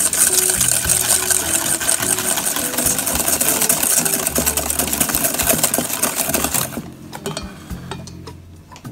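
Wire whisk beating egg yolks and sugar fast in a stainless steel bowl, the wires clattering rapidly against the metal as the mixture is whipped pale. The clatter stops abruptly about two-thirds of the way in, leaving a few light taps.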